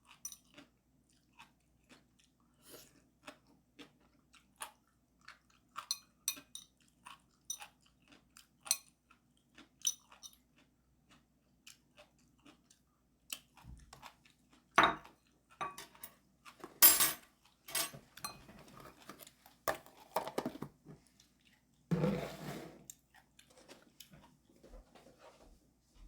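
A person chewing and crunching food close to the microphone, with many small wet clicks. In the second half come several louder sharp knocks and a clatter lasting about a second.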